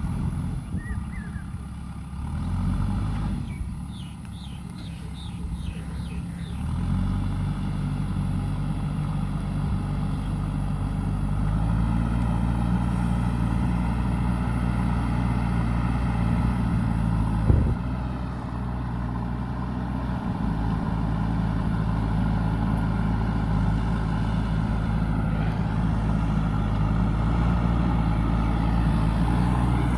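JCB backhoe loader's diesel engine running steadily, its revs stepping up under load about seven seconds in and again at about twelve seconds. A single sharp knock comes a little past halfway.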